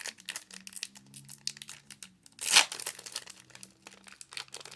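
Foil booster-pack wrapper of a Pokémon trading card pack crinkling and tearing as it is opened by hand, in irregular crackles with one louder rip about two and a half seconds in.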